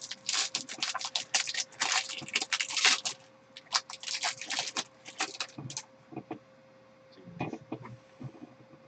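Foil trading-card pack wrapper crinkling and being torn open, a dense crackle for the first few seconds, then quieter rustling as the cards are handled.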